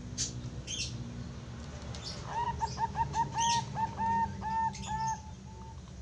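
A young Bangkok-line zebra dove (perkutut) sings its cooing song: a run of about ten short, clear notes beginning about two seconds in, quicker at first and then longer and more spaced, ending shortly before the end. Short high chirps sound throughout.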